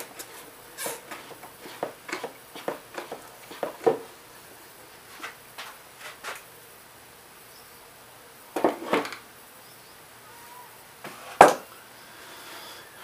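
Clicks and light knocks of hand tools and small parts being handled on a Briggs and Stratton lawn mower engine during disassembly, in scattered short strokes, a little cluster about two-thirds through and one sharp knock, the loudest, near the end.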